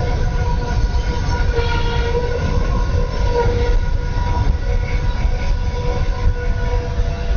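Train rolling past close by, heard through a doorbell camera's microphone: a heavy, steady low rumble with several high, steady tones held over it.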